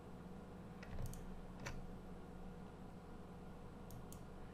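A handful of faint computer mouse clicks, some in quick pairs, as list items and a button are clicked. A low steady hum runs underneath.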